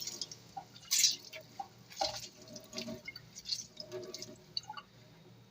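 Water dripping and splashing in irregular spurts as soaked pomelo pith is squeezed out by hand, the sharpest splashes about one and two seconds in.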